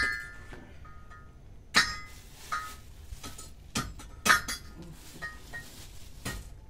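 A string of sharp, irregular clinks, each with a brief ring, like small glass or hard objects knocking together, mixed with a plastic bag being handled. The loudest clinks come at the start and about four seconds in.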